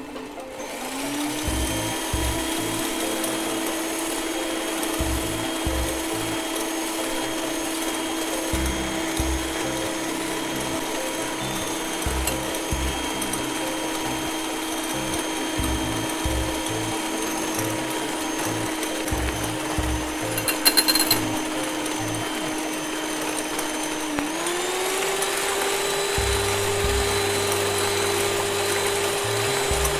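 Electric hand mixer running steadily, its beaters whipping instant coffee, sugar and warm water in a glass bowl into a thick foam. The motor spins up about a second in. Near the end its pitch dips briefly and then settles higher as it is switched to a faster speed. A short rattle comes a few seconds before the speed change.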